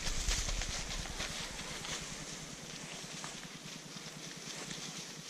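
Footsteps crunching through dry leaf litter and weeds, with rustling of brush, slowly getting quieter.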